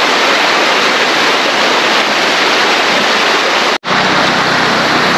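River water rushing and splashing, a loud steady noise. Near the end it cuts out for an instant and resumes with a low steady hum under the water.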